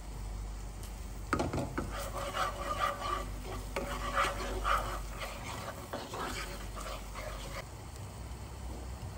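A wooden spoon stirring and scraping tomato paste frying in a pan, with a sizzle. The stirring starts about a second in and stops near the end, over a low steady rumble.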